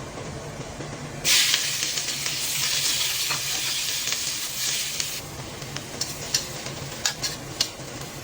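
Food sizzling in a hot pan: a loud sizzle starts suddenly about a second in and runs for about four seconds, then settles into a few scattered pops and crackles.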